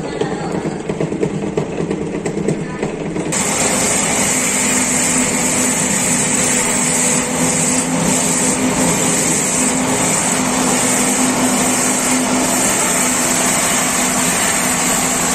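Motor-driven banana-fibre fining machine running steadily with a loud even whirring rush and a low hum while fibre is fed into it. For about the first three seconds a quieter fibre-braiding machine turns, then the louder machine cuts in abruptly.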